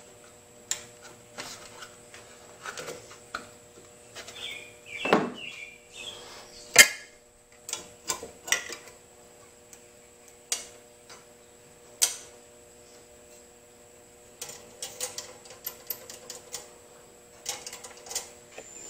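Scattered metal clicks and taps from hands working loose the carburetor and throttle linkage parts of a Lawn-Boy mower engine, with a faint steady hum underneath.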